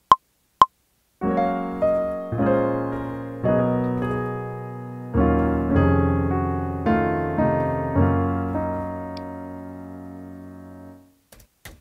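Two metronome count-in clicks, then a piano sound from a Roland Integra-7 sound module played live from a keyboard: a slow series of chords, each struck and decaying, the last left to ring and fade out.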